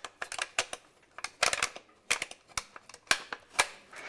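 A rapid, irregular series of sharp mechanical clicks and clacks, about a dozen and a half in all, some with a short ringing tail; the loudest come about one and a half and three seconds in.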